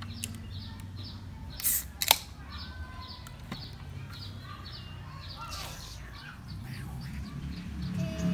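A Coca-Cola can of carbonated soda is pulled open about two seconds in: a brief hiss and a sharp crack of the tab. Near the end, cola is poured over ice into a plastic cup. Small birds chirp throughout.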